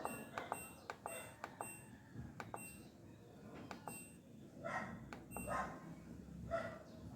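LG automatic washing machine control panel beeping as its wash-time button is pressed repeatedly: a run of short, high beeps, several close together early and a few more spaced out later. A few short muffled sounds come in the second half.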